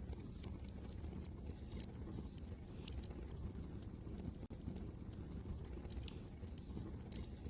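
Wood fire crackling with irregular small pops and snaps, over a steady low rumble of wind.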